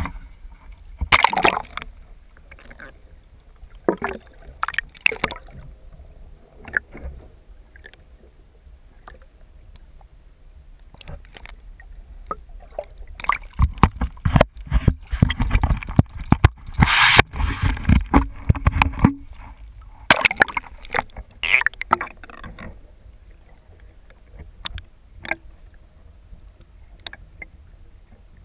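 Seawater splashing and sloshing against a waterproof camera as it is plunged through the sea surface, loudest for several seconds midway. It then turns to scattered, muffled knocks once the camera is underwater.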